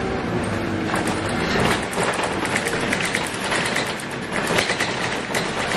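Scania K280UB bus on the move, heard from inside: its 9.3-litre five-cylinder diesel runs steadily while the body and fittings give off many quick, irregular rattles and clicks.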